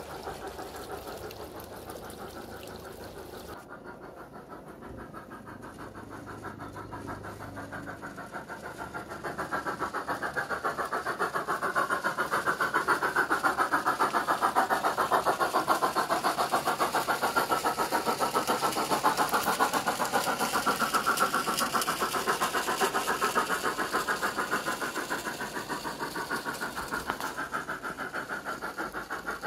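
Piko BR 24 G-scale model steam locomotive running under radio control, its MyLocosound sound card playing a steady, fast steam chuff through the loco's speaker. The sound grows louder about nine seconds in as the loco comes close, then eases a little near the end.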